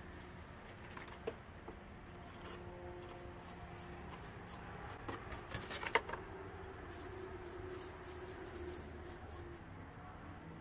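Faint scattered clicks and taps of small handling noises, with a cluster of louder clicks about six seconds in, over a low steady hum.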